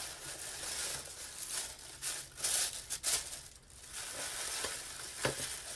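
Tissue paper crinkling and rustling as hands lift a wrapped package out of a tissue-lined box, with a sharp click near the end.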